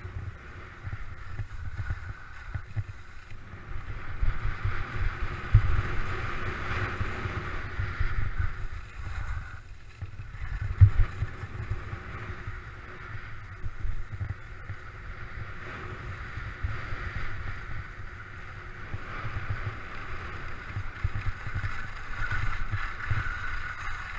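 Skis running downhill on firm, packed snow: a hissing scrape of the edges that swells and fades through the run, under gusty wind rumble buffeting the camera's microphone.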